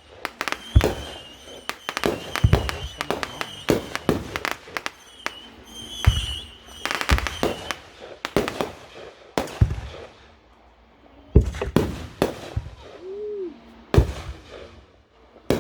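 Fireworks going off: a rapid string of sharp bangs and reports echoing away, thinning out after about five seconds, with a short lull around ten seconds in before a few more single bangs.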